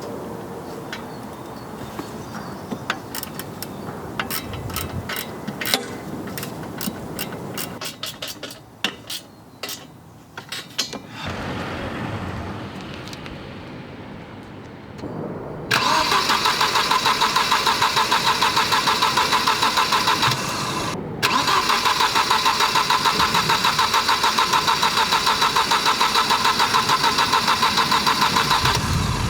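1998 Volvo 940's B230FK four-cylinder engine being cranked over by its starter motor with an even, rapid pulsing, in two long bursts with a short pause between, after a top-end rebuild. Sharp metallic clicks and knocks come before it.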